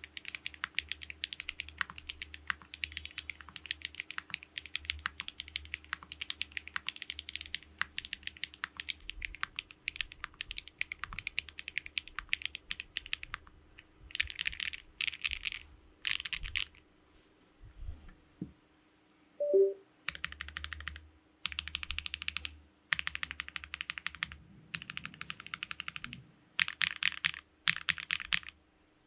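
Leaf65 gasket-mount 65% mechanical keyboard with stock HMX Cheese switches, a flex-cut aluminium plate, no foam and JTK keycaps, being typed on. It types steadily for the first half, then goes into short bursts of very rapid keystrokes with brief pauses between them. About two-thirds through, during a pause, comes a single short low sound, the loudest moment.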